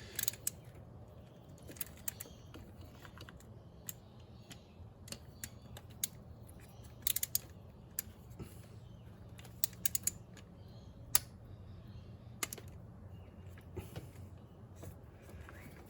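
Irregular small clicks and taps of hand work on engine parts: electrical connectors and fittings being pushed home and checked. A faint steady low hum runs beneath.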